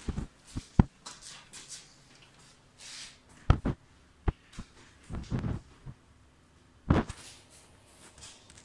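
Scattered sharp knocks and clicks at irregular intervals, with a few short rustles in between.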